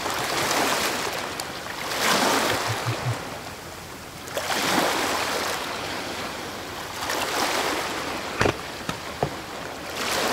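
Underwater water noise around the camera, rushing in slow swells about every two to three seconds, with two sharp clicks near the end.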